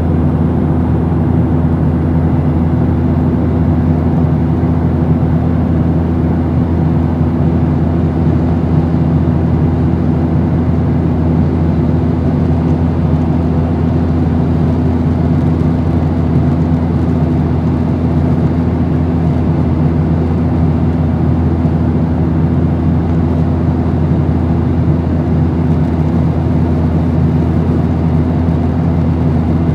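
Steady drone of a jet airliner in flight, heard inside the cabin: a low hum with a few steady tones underneath, unchanging throughout.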